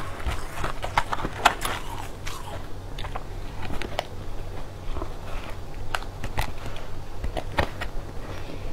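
Close-up crunching of colored crushed ice as it is bitten and chewed, in many sharp, irregular crackles, with a metal spoon scraping in the bowl between bites.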